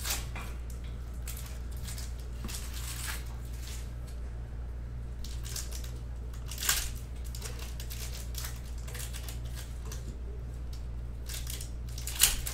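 Foil trading-card pack wrappers crinkling and tearing as packs are ripped open and the cards handled, in short scattered crackles, the loudest about two-thirds through and near the end. A steady low hum runs underneath.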